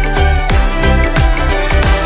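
Background music with a steady beat: sustained melodic notes over regular low drum hits.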